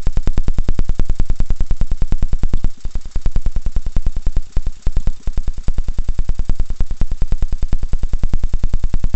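Small air-cooled Scammell engine running with a fast, even beat of about eight firing pulses a second. It dips and stumbles briefly a few times about three and four and a half seconds in.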